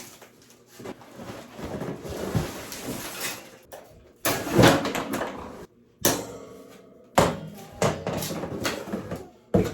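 Cardboard and plastic packaging rustling and scraping as a boxed grow-light shelf is unpacked, with several sudden knocks and thumps from parts being handled. The loudest burst comes about four and a half seconds in.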